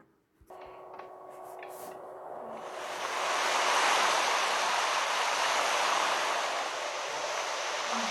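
A steady rushing hiss with no clear pitch. It fades in after a brief silence, grows louder about three seconds in, then holds.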